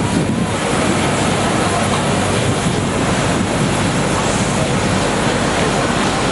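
Steady, even aircraft noise on an airport apron, from a parked Airbus A330 airliner.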